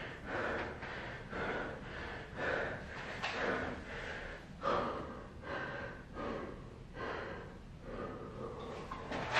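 A man's heavy, rapid breathing, panting in and out over and over as he catches his breath right after a hard set of burpees.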